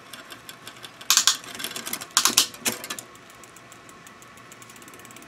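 Bicycle drivetrain being shifted and pedalled by hand: two short bursts of clicking and clatter about one and two seconds in as the gears change, then a fast, even ticking of the freewheel and chain as the cranks turn.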